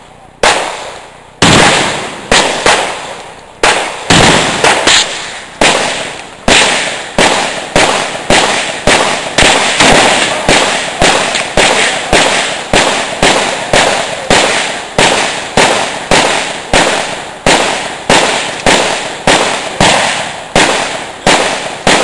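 Rapid string of gunshots, roughly two a second, each sharp crack ringing out briefly before the next.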